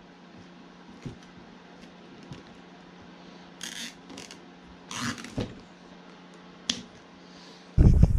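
Nylon zip ties being pulled tight around a cable, giving two short rasps amid small handling clicks over a faint steady hum. Near the end, loud wind buffeting on the microphone takes over.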